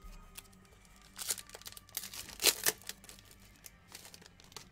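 Foil wrapper of a trading-card pack crinkling and tearing as it is ripped open by hand, in a few short spells, the loudest about two and a half seconds in.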